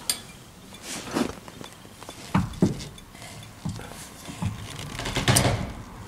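Irregular clicks and knocks of hands working at a 1960 Chrysler 300F's steering column and turn signal switch, with a louder clunk about five seconds in.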